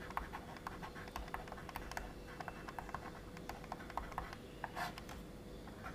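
Stylus tapping and scratching on a tablet screen as words are handwritten: a string of faint, irregular light clicks.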